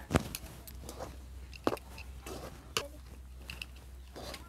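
Long metal spatula stirring and pressing a thick palm-pulp and flour dough in a steel wok, with a few sharp clinks of metal on metal and soft squishing of the dough.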